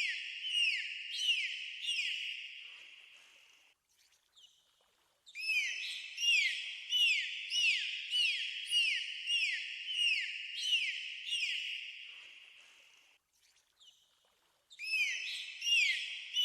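Dolphin whistles: bouts of short arching chirps repeated about twice a second, each bout dying away in a long echo. They come back after a pause of about a second and a half, twice.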